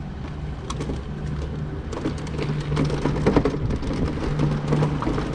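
Motorcycle engine running at low speed with a low hum that swells and drops, and a gritty crackling noise over it.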